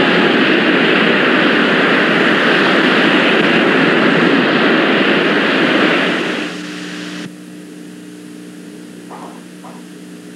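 A loud, steady rushing noise that fades out about six seconds in, leaving a low, steady hum.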